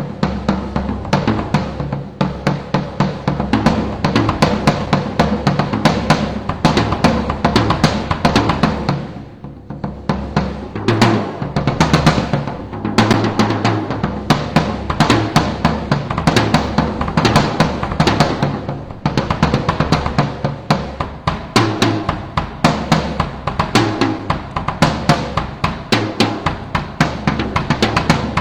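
Ludwig Classic Maple drum kit played as a full groove: 22x14 bass drum, 13x9 tom and 16x16 floor tom with snare and cymbals, in steady patterns and fills. The playing eases off briefly about nine seconds in, then picks up again.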